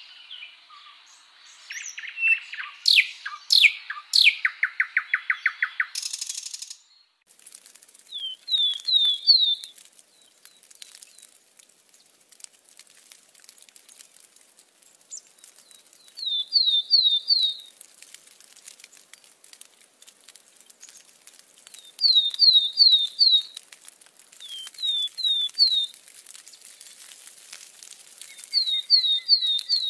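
Birds singing: mixed chirps and a fast trill for the first several seconds, which stop abruptly, then a short phrase of three or four quick downward-swept whistled notes repeated about five times, a few seconds apart.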